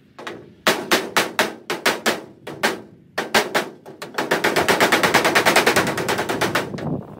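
Claw hammer striking the sheet-steel side of a file cabinet, backed by a wood block, to beat out a dent. A run of sharp metallic blows about four or five a second, a short pause, then a faster, denser flurry that stops just before the end.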